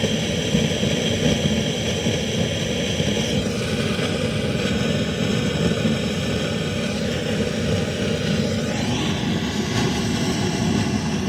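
Guitar overdrive pedal (a super drive) switched on through the amplifier with no notes played, giving a loud, steady buzzing hiss. This is unwanted noise that the clean sound does not have, the pedal fault being demonstrated.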